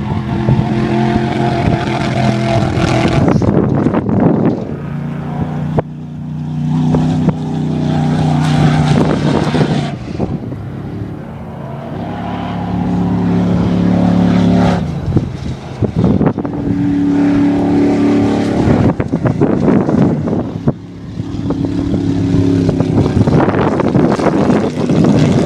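Racing engines revving hard as vehicles go by. The pitch climbs and drops over and over as they accelerate and lift off, and the loudness swells and fades with each pass.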